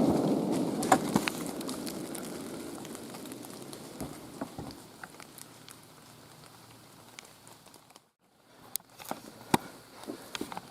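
The rolling echo of a .30-06 rifle shot, fading away steadily over about six seconds. Afterwards come scattered small ticks and crackles, with a brief dropout a little after eight seconds.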